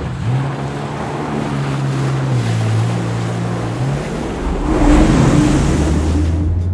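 Sea-Doo GTX 230 personal watercraft running on the water, its engine note dropping about two and a half seconds in, with rushing water and wind throughout. Around five seconds in there is a louder surge of spray and water noise, and then the engine settles to a lower, steady note.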